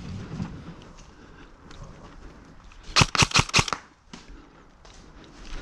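A quick burst of about six airsoft gun shots, fired in under a second about three seconds in.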